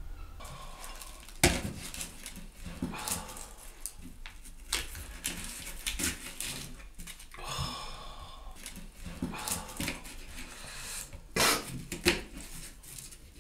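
Kitchen knives peeling and cutting onions on chopping boards, with irregular sharp knocks of the blades on the boards and scraping of onion skins between them.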